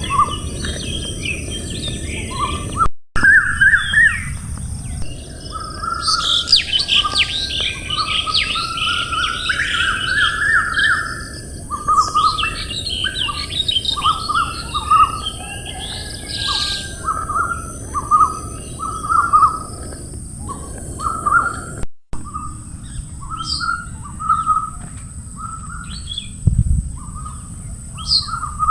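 Several songbirds singing and chirping together, with short repeated chirps throughout and a burst of busier, higher trilling in the first half. A steady high-pitched tone sits underneath, and the sound cuts out briefly twice.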